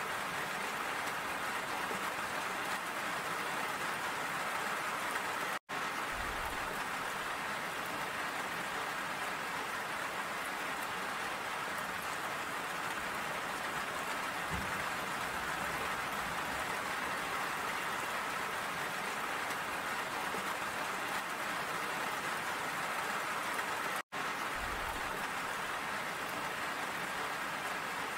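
Steady rain falling, an even hiss of drops. It cuts out for an instant twice, about six seconds in and about four seconds before the end.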